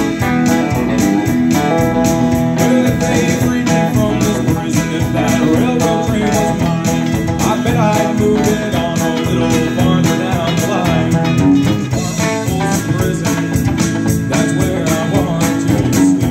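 Live band playing a song on acoustic guitar, electric guitar, bass guitar and drums, with a steady beat and a man singing lead.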